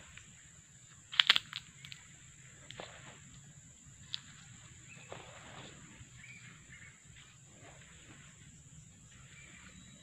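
Footsteps crunching on dry leaves and twigs along a forest path, with a sharp crackle about a second in and lighter steps after it. Under them runs a steady high-pitched drone of night insects.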